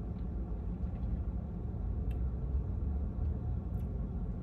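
Steady low rumble inside a car cabin, with two faint clicks, one about two seconds in and one near the end.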